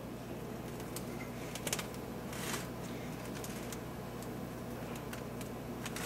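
Faint handling noise of fingers crimping and fluting the edge of a pie crust in a pie dish: scattered light clicks and taps, with a short rustle about two and a half seconds in, over a steady low hum.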